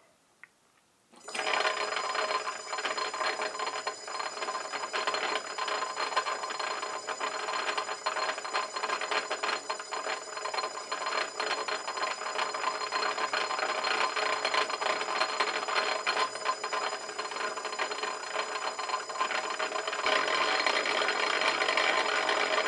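Small metal lathe starting up about a second in and running steadily in back gear at slow spindle speed, with motor whine and gear-train rattle; it gets slightly louder near the end.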